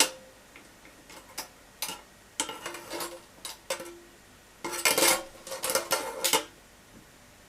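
Metal parts of a compact deep fat fryer, its bowl and basket, clinking and rattling as they are tried in place and fitted together. The clicks come in clusters, some with a short metallic ring, and the busiest come about five to six seconds in.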